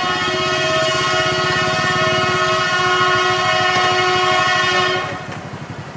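Jakarta–Bandung high-speed train sounding a long, loud horn chord, held steady and cutting off about five seconds in, over a fast low rumble of the train running on the line.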